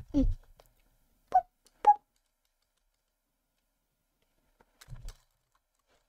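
A brief voice sound, then a few isolated computer keyboard key presses: two sharp taps about a second apart early on, and a couple of soft knocks near the end, with quiet gaps between.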